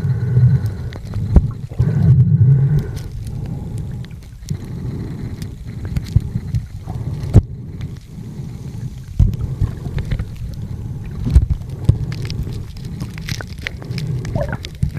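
Muffled underwater sound picked up by a camera in its waterproof housing: a low water rumble that surges louder in the first few seconds, with scattered sharp clicks and knocks.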